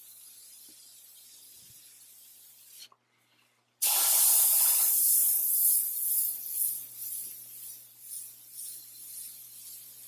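Meng MT-001 gravity-feed airbrush spraying thinned acrylic paint: a steady hiss that cuts out for about a second near three seconds in, then comes back much louder. From about six seconds in it swells and fades over and over as loops are sprayed.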